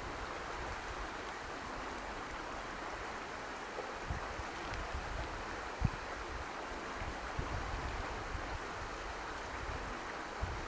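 Steady hiss of wind and light rain on the microphone, with a few low thumps as gusts buffet it, the strongest about six seconds in.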